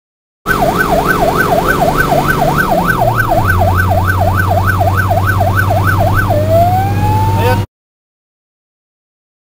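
Fire truck siren heard from inside the cab of a Star fire engine, yelping fast at about three rises and falls a second, then switching near the end to a slow rising wail, with the truck's engine running underneath; its note drops about three seconds in. The sound starts about half a second in and cuts off suddenly.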